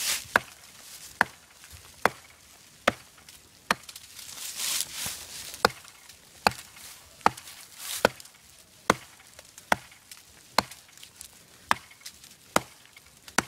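Handmade Danish-style flint axe chopping into a small tree's trunk: a steady run of sharp blows, a little more than one a second.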